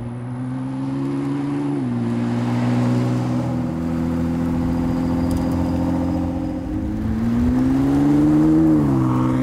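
2019 Ford GT's twin-turbocharged EcoBoost V6 running as the car is driven. Its note steps down in pitch about two seconds in and holds steady, then climbs for a second or so and drops back near the end.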